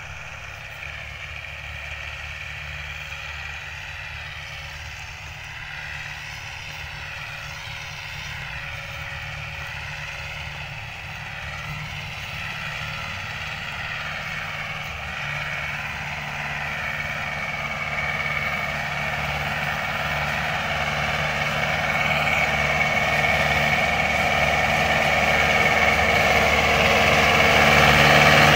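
Diesel engine of a Mahindra DI tractor running steadily under load, pulling a disc harrow through ploughed soil. It grows steadily louder as the tractor comes closer.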